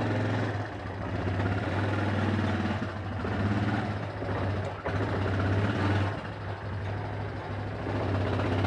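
Yamaha Grizzly 350 ATV engine running at low speed while reversing with a snowplow mounted, its revs rising and falling as it is eased back and forth.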